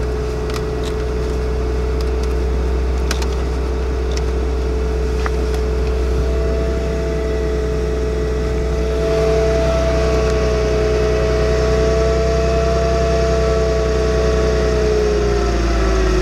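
Mercedes-Benz C240's 2.6-litre V6 idling steadily at about 1,000 rpm just after a cold start, having sat for four days. A steady whine rides over the low engine note, and a second, higher whine joins about six seconds in. It sounds healthy.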